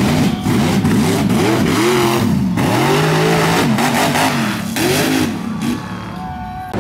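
Mud truck engine revving hard at full throttle, its pitch climbing and falling several times as it runs through a mud hole, then dropping away near the end.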